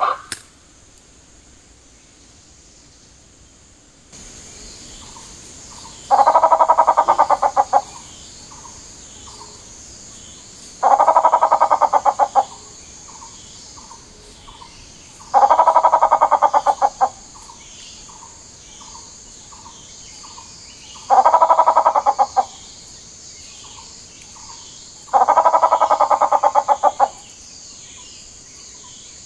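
Gray peacock-pheasant calling: five loud, harsh, rapidly pulsed calls about a second and a half long, one every four to five seconds, with short soft notes in between. A steady high insect buzz starts about four seconds in.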